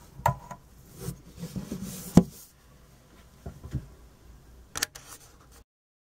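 Handling noise as the plastic check-gas cap and its tubing are worked off a wall-mounted CO monitor: a scatter of light clicks, knocks and rubbing, the sharpest knock about two seconds in. The sound cuts to dead silence near the end.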